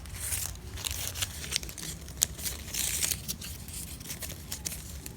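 Stiff embossed glitter ribbon crinkling and rustling in small, irregular bursts as it is handled and folded into a weave, over a steady low hum.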